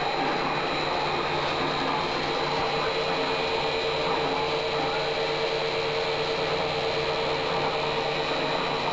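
Steady electric machine running noise from the CNC-converted Acra 9x42 milling machine and its motor drives: an even hiss with a constant high whine and a steady mid-pitched hum.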